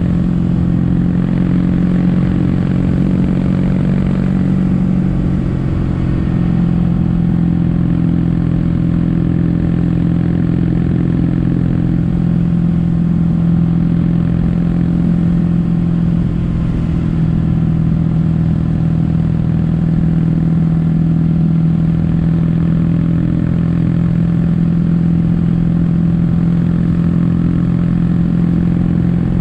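Kawasaki W800's air-cooled parallel-twin engine running through a Yamato stainless-steel Cabton-style silencer at a steady pace. Its exhaust note drops slightly in pitch about five seconds in, then holds even.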